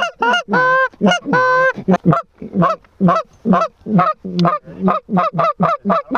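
Canada goose call blown in a fast, even run of clucks, about four a second, with two longer drawn-out honks in the first two seconds: a hunter calling to geese circling overhead.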